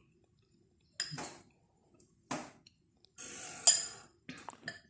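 A spoon clinking and scraping against a glass bowl. There are two separate knocks, then a longer scrape about three seconds in that ends in a sharp clink, and a few light taps near the end.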